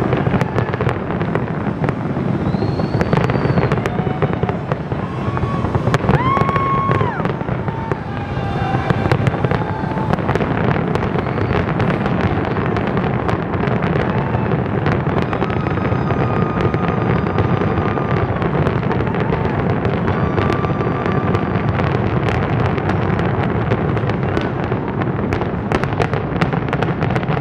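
Dense aerial fireworks barrage: continuous crackling and bangs with no gaps, and whistling tones rising and falling in the first ten seconds.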